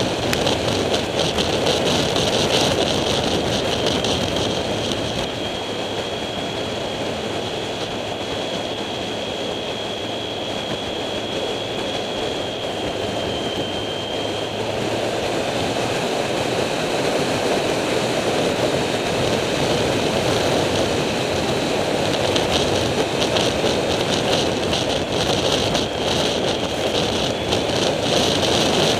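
Wind rushing over the microphone of a camera mounted on a Triumph Street Triple, its 675 cc three-cylinder engine running underneath at a steady road speed. A thin, high steady whine sounds through the first half, then fades out.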